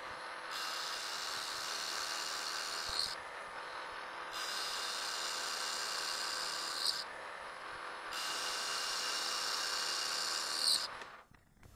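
Precision Matthews PM-1127 metal lathe running while a facing tool takes small cuts on the outside of a cast iron pallet. A steady machine hum sits under a higher scraping hiss from the cut, which comes and goes three times for about three seconds each. The cutting stops shortly before the end.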